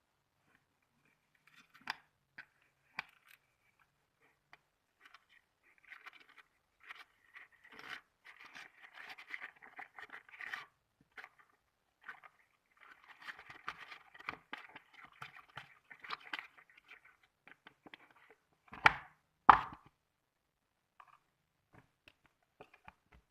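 Thick, glossy slime being squeezed and stretched by hand, giving runs of small sticky clicks and squelches, with two louder pops just after the middle.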